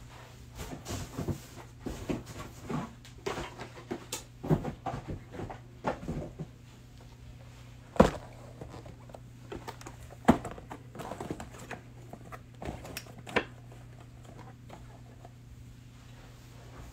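Cardboard trading-card hanger boxes being handled, stacked and set down on a tabletop: a quick run of light taps and knocks, then a few single sharper knocks.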